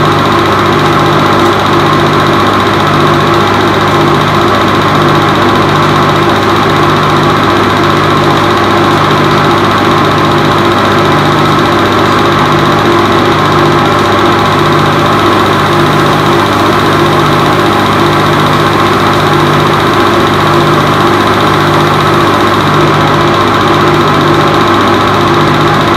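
Movie projector running: a steady motor whirr with a slow, even pulse about once a second.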